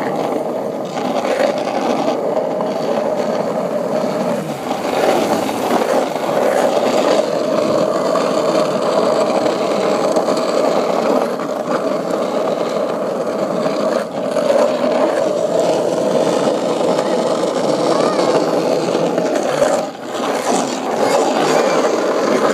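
Steady scraping rattle of a child's bicycle with training wheels rolling over asphalt.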